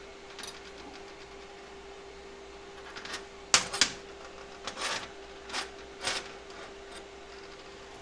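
Small stainless-steel bolt-and-nut model clicking and clinking against a steel welding table and a helping-hands alligator clip as it is handled, turned and set down: a string of light metal knocks, the loudest about three and a half seconds in, over a faint steady hum.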